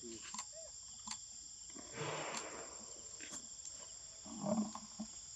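Steady high-pitched drone of forest insects, with scattered sharp clicks, a brief rustling noise about two seconds in and a short low sound near the end.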